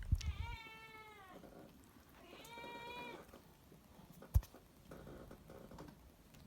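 A cat meowing twice: a long meow that falls in pitch at its end, then a shorter, steady one. A sharp click a little over four seconds in.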